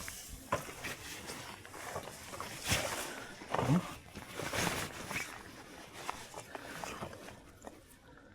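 Irregular rustling, scraping and knocking of close handling noise near water, with a brief low grunt-like sound about three and a half seconds in.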